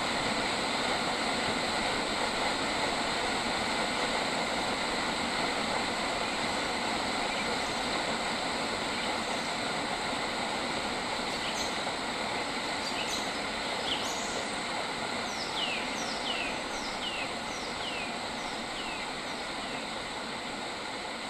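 A bird calling over a steady rushing background noise: a few sharp high chirps about halfway in, then a run of about seven quick notes, each sliding downward, spaced a little over half a second apart.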